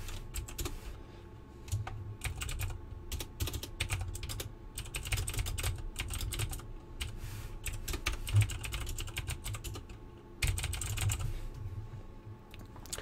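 Typing on a computer keyboard: irregular runs of quick keystroke clicks, with a short lull about three-quarters of the way through.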